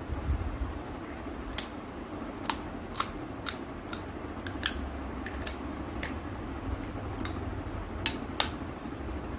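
A metal spoon clinking and tapping against a plastic bowl of pani as it is stirred: about a dozen sharp, separate clicks at irregular intervals, the loudest near the end. A low rumble runs underneath.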